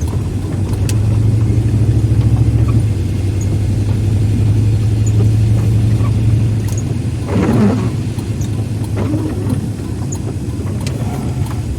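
Car interior drone of engine and road noise while driving, a steady low hum, a little louder in the first few seconds.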